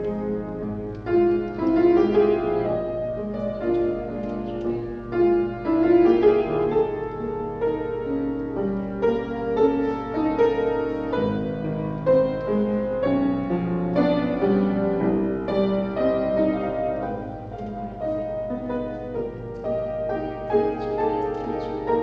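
Solo piano playing steady, metered classical accompaniment for a ballet barre exercise.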